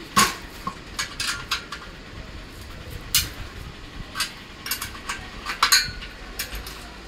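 Steel sewing-machine treadle stand being handled and adjusted: irregular sharp metallic clinks and knocks, the loudest just after the start and another about two-thirds through.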